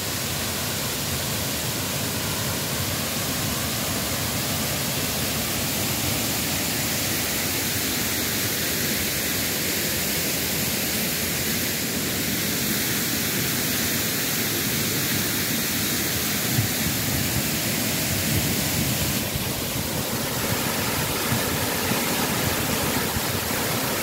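Steady rush of the Odaki waterfall's falling water, running in unusually high flow after heavy rain.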